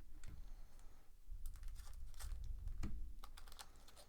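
Trading cards being handled and flipped one behind another while a pack is sorted: a run of light, irregular clicks and snaps, thickest in the middle.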